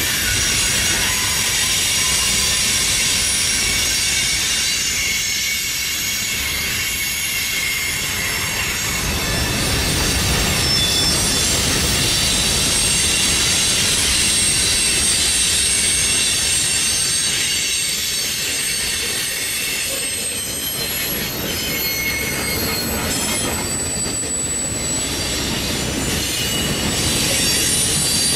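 Freight cars of a passing mixed freight train rolling by at close range: a steady rumble of wheels on the rails with thin, high-pitched wheel squeal running through it.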